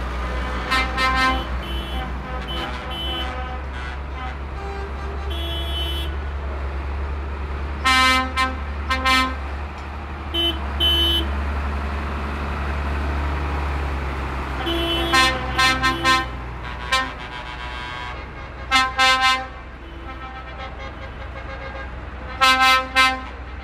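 Tractor engines running in a slow procession, a steady low rumble, with vehicle horns sounding short toots every few seconds, often two or three in quick succession.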